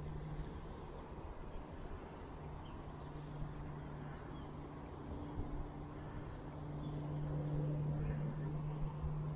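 Pro Boat Veles 29 V2 RC race boat's brushless electric motor humming steadily at a distance, one steady pitch, getting a little louder in the last couple of seconds.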